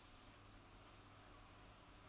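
Near silence: faint steady room tone, an even hiss with a low hum.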